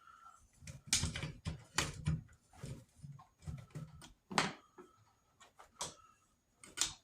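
Irregular clicks and knocks of plastic vacuum-cleaner parts being handled as small rubber seals are worked onto the Kirby's cover.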